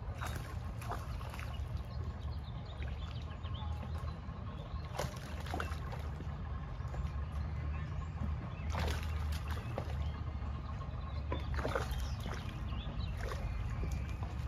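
Water splashing in short bursts as a hooked bass thrashes at the surface while being reeled in, over a steady low rumble.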